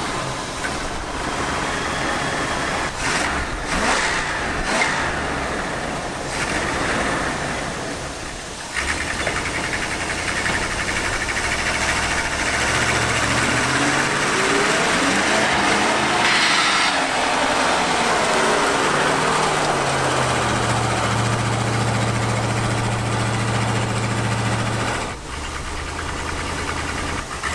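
1977 Dodge D150 pickup's engine running and being revved, with a few sharp knocks in the first several seconds. Around halfway through the revs climb and fall back, then the engine is held at steady high revs for several seconds before dropping suddenly near the end.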